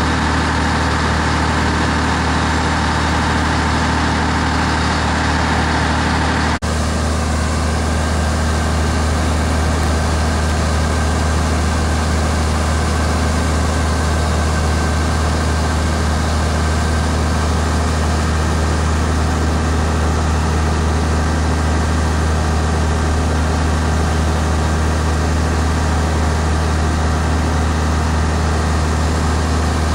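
Diesel engine of a Mack C125 fire pumper running steadily at pumping speed while drafting water and supplying the deck gun, with the hiss of the water stream over it. There is a brief break about six and a half seconds in.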